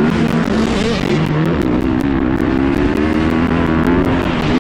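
Motocross bike engine at race pace, heard close from on the bike: the pitch rises, drops and climbs again as the rider works the throttle and shifts, then holds fairly steady.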